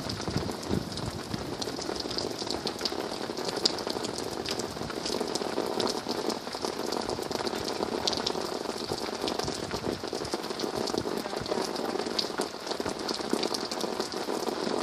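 Steady rain from a thunderstorm falling, with many small sharp ticks of drops landing close by.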